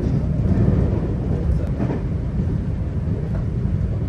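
Running noise of a 521 series electric train heard from inside the passenger car: a steady low rumble of wheels on the rails and the car underway.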